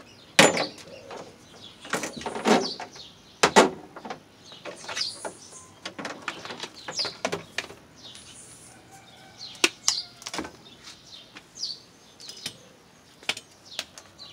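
Irregular clicks and knocks from hands handling objects at a workbench, with small birds chirping now and then in the background.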